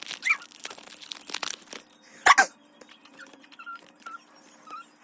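Foil booster-pack wrapper crinkling and tearing for the first second and a half or so, then one loud short squeak a little after two seconds and a few faint high squeaks later on.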